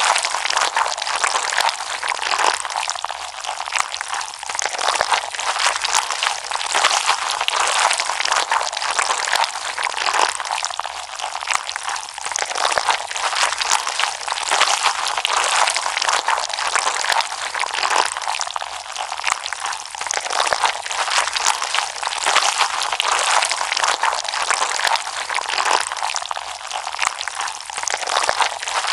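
Slime being squished and stretched by hand, giving a dense, continuous crackling of many tiny clicks.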